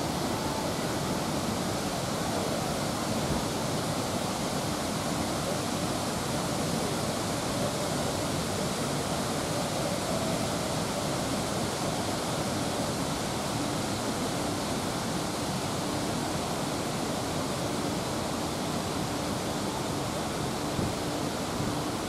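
Steady, even rush of flowing water, with no breaks.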